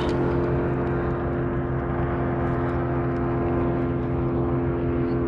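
Steady motor drone holding a few fixed pitches without change, with faint scattered ticks over it.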